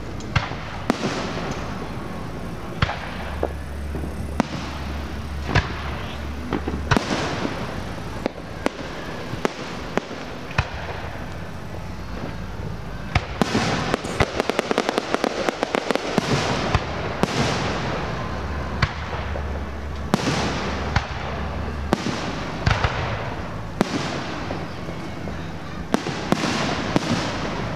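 Fireworks display: a steady series of sharp bangs from bursting shells, with a dense run of rapid popping about halfway through.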